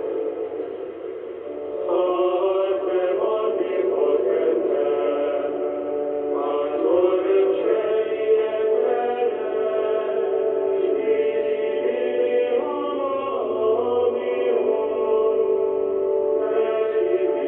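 Choir singing in phrases during a Christmas Mass broadcast, received on longwave AM radio through a Yaesu FRG-100 receiver, so the sound is narrow and thin with nothing above the upper mid-range.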